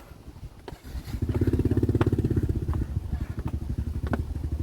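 A small engine running with a fast, even throb, starting about a second in, with a few faint clicks over it.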